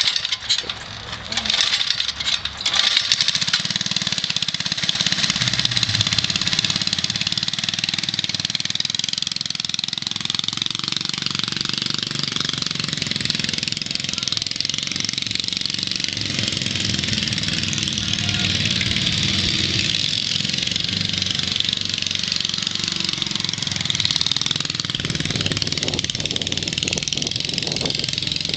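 Bird mini bike's small single-cylinder engine running. The sound is choppy and uneven for the first few seconds, then steadies, its pitch rising and falling slowly as the bike is ridden.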